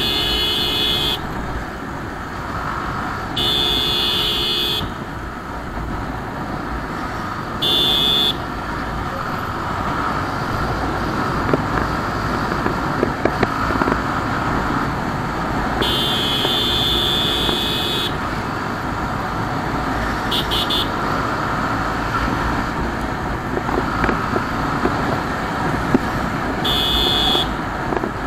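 Continuous wind rush and engine noise from a Bajaj Pulsar motorcycle riding at around 70 km/h. A horn honks six times, in blasts of about half a second to two seconds, each with the same steady tone.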